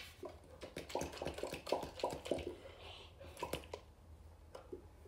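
A plastic tub of yellow slime being handled: a run of small irregular clicks and squishes that dies down about four seconds in.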